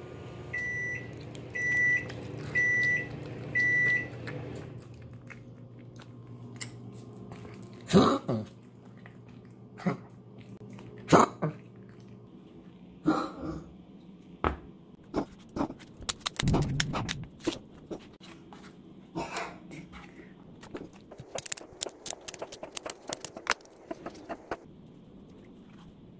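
Microwave oven sounding its four-beep done signal over its running hum, which then dies away. Scattered clicks and knocks of handling follow.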